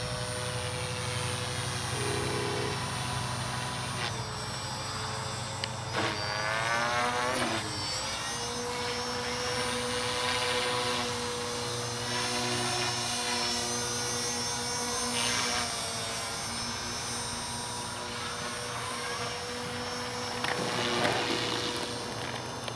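Align T-Rex 450 Pro electric RC helicopter in flight, its brushless motor and rotor whining steadily. The pitch swings up and down a few times as it manoeuvres, most clearly about six seconds in and again near the end.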